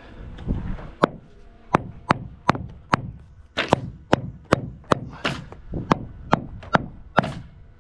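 Repeated hammering, about fifteen sharp blows at roughly two a second.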